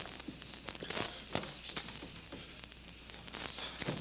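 Footsteps and small knocks on a floor, irregular and fairly faint, over a low steady hum.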